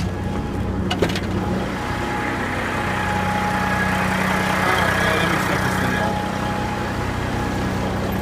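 Caterpillar 3406B inline-six diesel truck engine idling steadily, with a single sharp knock about a second in.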